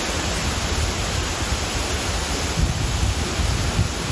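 Torrential tropical rain: a dense, steady hiss of rainfall with water pouring off a roof edge. A few low rumbling bumps come in the second half.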